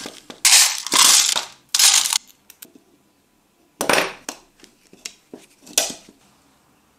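Small metal M4 nuts and hardware being handled, rattling and clinking in short bursts: several in the first two seconds, then sharper clinks with two more bursts near the middle and about a second later.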